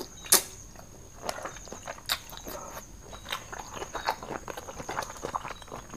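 Close-miked chewing and lip smacks of someone eating squid and papaya salad: irregular wet clicks and smacks, the sharpest about a third of a second in.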